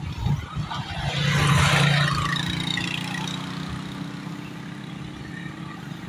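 A motor vehicle passing close by on a wet road: engine hum and tyre hiss swell to a peak about a second and a half in, then fade, leaving a lower engine hum.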